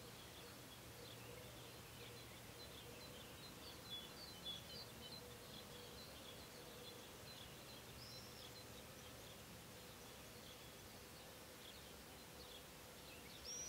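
Quiet outdoor ambience with faint, high chirps and twitters of small birds in the background, a couple slightly louder about four seconds in and a short call near the end, over a faint steady hum.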